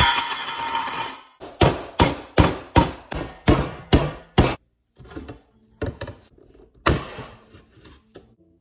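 Claw hammer striking the edge of an 8-inch splash cymbal laid on a wooden workbench, about nine quick blows in a row, bending the edge to make a china-style cymbal. A bright metallic ring comes first, and a few lighter knocks and handling follow the blows.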